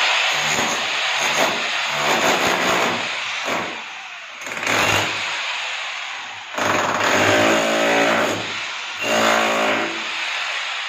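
Electric chipping hammer (small breaker) chiselling out a cut slot in a masonry wall for concealed pipes, running in long bursts with brief easings about four and six and a half seconds in.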